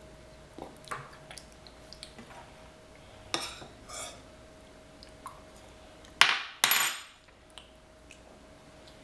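A metal spoon clinking and scraping in a plastic bowl as a toddler eats beans. There are small clicks at first, louder clinks about three and four seconds in, and two loud clatters of spoon and bowl about six seconds in.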